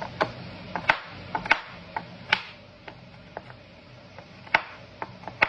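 Kitchen knife chopping a bar of dark chocolate finely: sharp, uneven knocks, about two a second.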